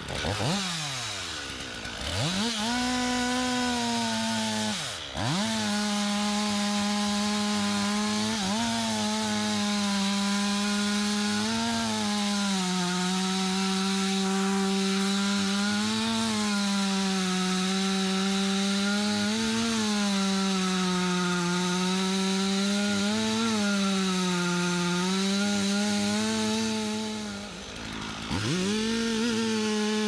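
Chainsaw running at high revs and cutting into anjili (wild jack) wood, its engine pitch rising and sagging every few seconds as the chain bites. The revs drop briefly about five seconds in and again near the end before the saw picks back up.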